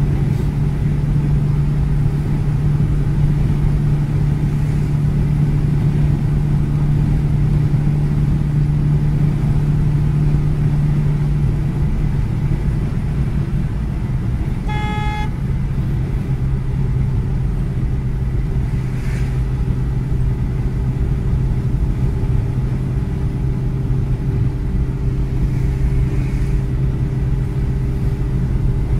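Car engine and road noise heard from inside the cabin while driving at highway speed, a steady hum whose pitch settles a little lower about halfway through. A single short vehicle horn toot sounds about halfway in.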